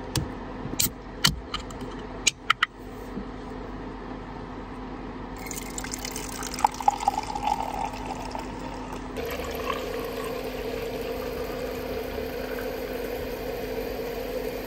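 A few sharp clicks and taps, then a drink poured into a cup, gurgling for a couple of seconds. A steady hiss follows.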